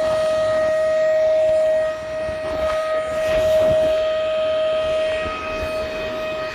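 Vacuum cleaner running steadily: a constant motor whine over the rush of air.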